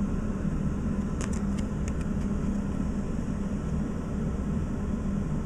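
Steady low mechanical room hum, with a handful of light, sharp clicks starting about a second in as a trading card is handled and turned over.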